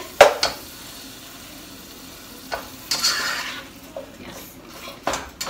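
Ground beef frying with chopped sweet pepper and onion in a pot, sizzling steadily while a spatula stirs it, scraping and knocking against the pot; the sharpest knock comes just after the start, with more near the end.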